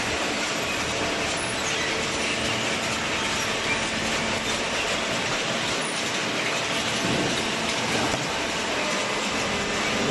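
Semi-automatic hydraulic carton baler running: a steady mechanical noise with faint hums and light rattling.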